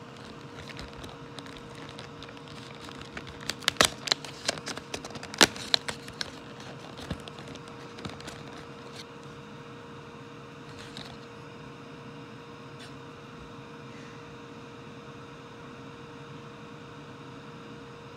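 Crackling and clicking of a cardboard advent calendar door being torn open and a chocolate pried out of its plastic tray: a quick cluster of sharp cracks about four to six seconds in, over a steady background hum.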